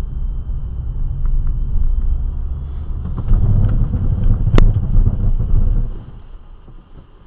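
Car interior rumble picked up by a dashcam while driving: low engine and road noise that grows heavier partway through and then falls away sharply about six seconds in. A single sharp click or knock comes about four and a half seconds in, and a faint steady high whine runs under it all.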